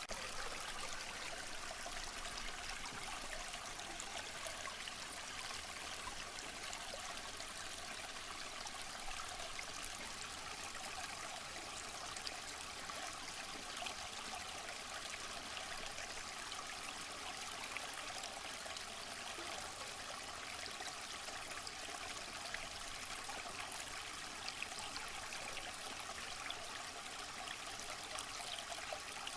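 Waterfall: a steady, unbroken rush of falling water, a bright even hiss with little low rumble.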